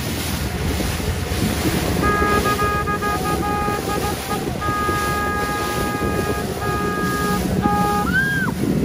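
Rushing wake water and wind buffeting the microphone from a moving boat. From about two seconds in, a steady pitched horn-like tone sounds in several long blasts, ending in a short rising-and-falling whistle near the end.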